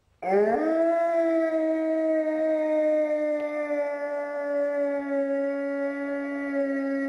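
A single long howl: one pitched note swoops up just after the start, then is held almost steady, sinking slightly in pitch, without a break.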